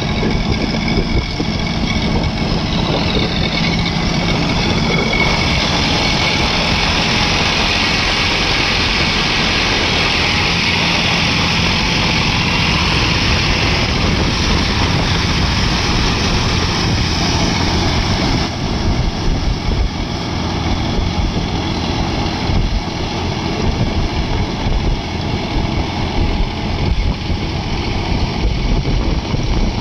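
John Deere tractor's diesel engine running steadily under load. The upper part of the sound drops back about two-thirds of the way through.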